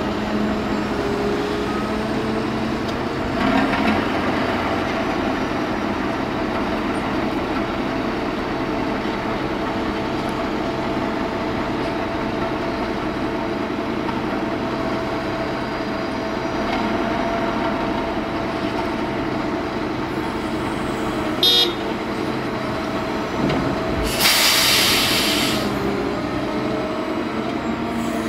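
Diesel engines of a Liebherr 944 crawler excavator and a Roman tipper truck running steadily as the excavator loads earth into the truck. A sharp knock about three-quarters of the way through, then a short hiss.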